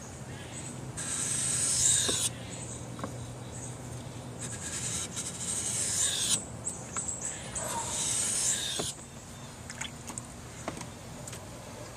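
Knife blade being sharpened by hand: three long scraping strokes of steel on an abrasive, with short pauses and light clicks between them.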